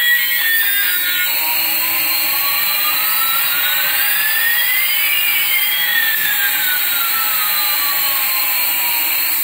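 Small coaxial toy RC helicopter hovering, its rotors making a steady whirring hiss. Over it run two motor whines, one rising in pitch while the other falls, crossing about halfway.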